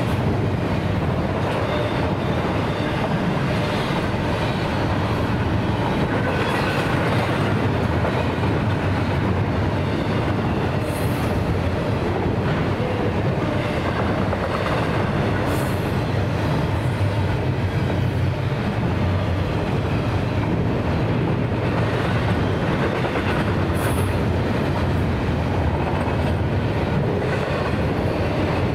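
Union Pacific double-stack intermodal train rolling past: a steady rumble of steel wheels on rail. Three brief high-pitched squeals come through, about a third of the way in, midway and near the end.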